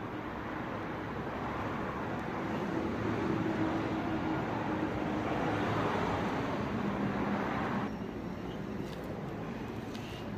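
Traffic noise from a passing motor vehicle: a steady rushing sound that swells, then drops off sharply about eight seconds in.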